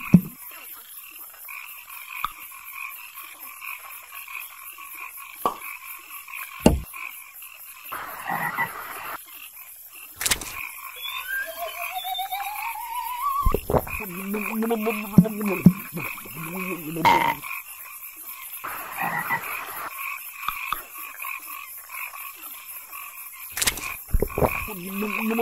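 Steady chorus of frogs croaking, with cartoon sound effects over it: a few sharp knocks or pops, a rising whistle-like glide about eleven seconds in, and short vocal noises around fifteen seconds in and near the end.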